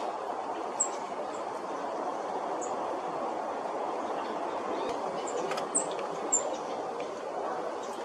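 Steady rush of wind through trees, with about six short, very high bird chips scattered through it.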